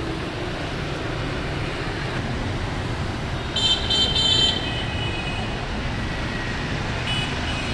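Steady city street traffic noise, with a few quick high horn beeps about three and a half seconds in and another short beep near the end.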